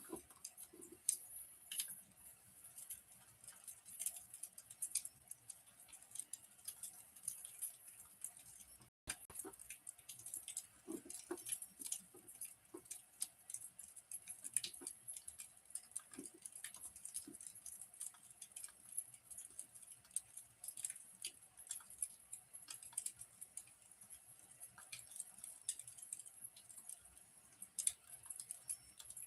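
Wood fire crackling, with irregular small pops and snaps over a soft steady hiss. The sound drops out for an instant about nine seconds in.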